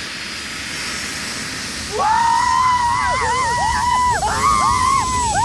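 Steady roar of a jet airliner's engine blast, with several people screaming and shrieking in it from about two seconds in.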